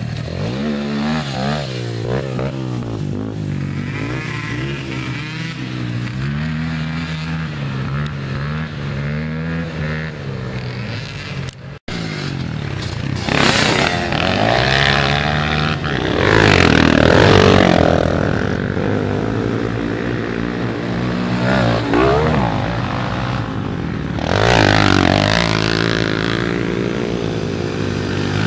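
Youth racing ATV engines revving up and down as the quads ride the course. There is a brief cut about twelve seconds in, after which two or more engines are heard together, rising and falling in pitch.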